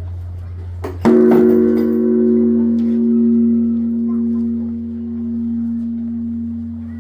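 Large bronze Buddhist temple bell struck once about a second in, then ringing on with a slowly swelling and fading pulse over a steady low hum.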